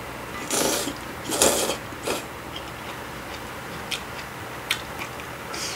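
Slurping hot kimchi noodle soup: three noisy slurps in the first two seconds. Then a few light clicks of chopsticks against the bowl.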